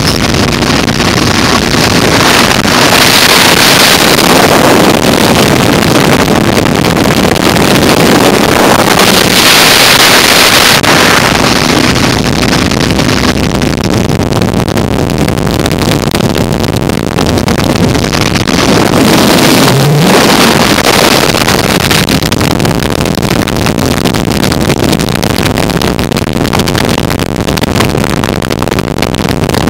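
Wind rushing over the microphone of a motorcycle at highway speed, with engine and road noise beneath. The rush swells louder a few times.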